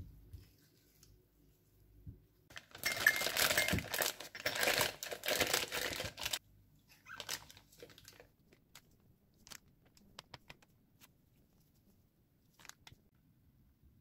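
Disposable plastic piping bag crinkling loudly for about three and a half seconds as it is handled and fitted into a glass, followed by scattered light clicks and taps.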